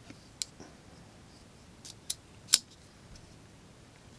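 CJRB Kicker folding knife being handled: a few short, sharp metallic clicks from the blade and lock, the loudest about two and a half seconds in.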